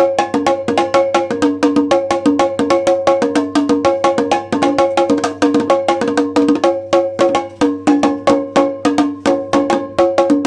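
Nagada kettle drums beaten in a fast, steady rhythm, the pitched strokes alternating between a lower and a higher ringing tone.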